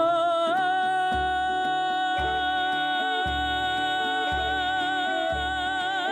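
Kazakh folk ensemble music from a kobyz band: one long held melody note, slid up into at the start and wavering throughout, over a deep beat about once a second.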